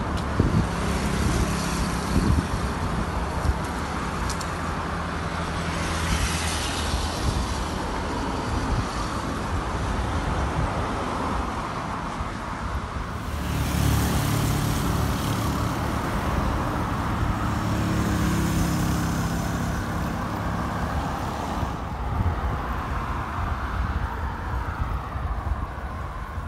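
Road traffic: cars and motorcycles on a multi-lane highway, a steady hum of engines and tyres that grows louder for several seconds about halfway through.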